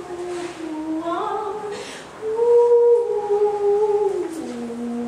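A woman's voice singing wordless, long held notes, stepping from one pitch to the next. The loudest note comes about two seconds in, then slides down to a lower held note near the end.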